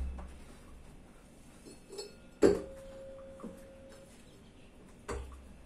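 Metal knocks from a gearless e-bike hub motor being forced apart by hand to pull out the stator against its permanent magnets: one sharp knock about two and a half seconds in leaves a brief ringing tone, with lighter clicks around it and another knock near the end.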